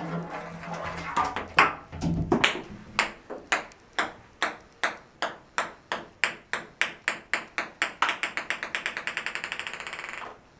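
Ping pong ball bouncing on a hard surface, first with a few irregular knocks. Then comes a long run of sharp pings whose spacing steadily shortens until they run together into a fast patter and stop, as the ball comes to rest.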